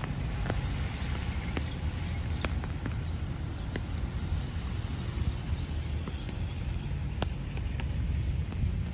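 Heavy rain, with large drops tapping irregularly on a nearby surface over a steady low rumble.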